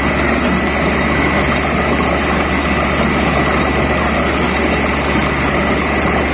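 Borewell drilling rig running steadily: a heavy engine's constant drone with a thin steady whine above it.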